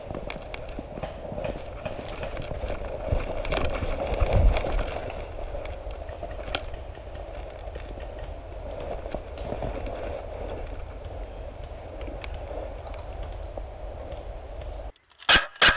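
Footsteps and gear rustle of a player moving on foot, with scattered small clicks and knocks. In the last moment, after an abrupt drop-out, a rapid string of sharp, loud cracks starts: airsoft rifle fire.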